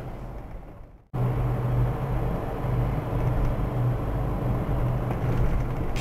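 Steady engine and road noise inside a moving car, picked up by a dashcam. It fades away over the first second, goes silent briefly, then cuts back in abruptly.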